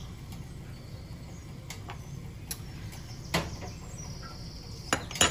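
Quiet kitchen room tone: a steady low hum with a few light clicks, the sharpest near the end, and faint high chirping about three and a half seconds in.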